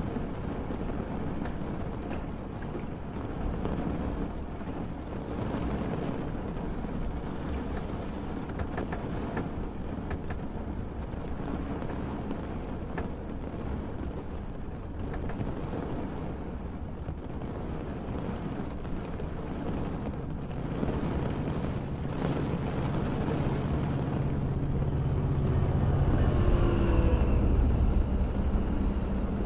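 Steady rain with a low rumble beneath it. Over the last several seconds a low vehicle drone swells and gets louder, with a few faint gliding tones near the end.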